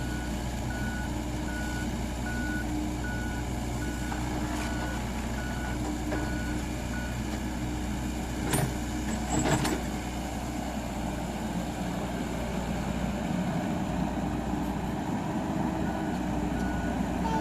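Heavy construction machine's diesel engine running steadily, with its backup/travel warning alarm beeping in a regular pattern about twice a second; the beeping stops partway through and starts again near the end. Two sharp metallic clanks come around the middle.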